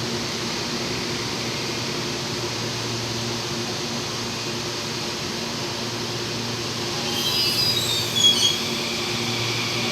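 ViaMobilidade electric commuter train Q056 departing with a steady low hum. About seven seconds in, short high whines and squeals come in briefly and are loudest a little after eight seconds.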